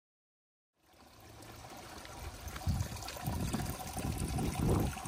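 Water trickling in a garden pond and stream, fading in about a second in and growing louder, with irregular low buffeting on the microphone.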